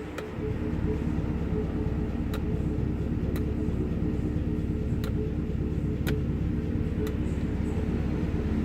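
A Chevrolet Camaro's engine running steadily at idle, with a few sharp clicks at irregular intervals.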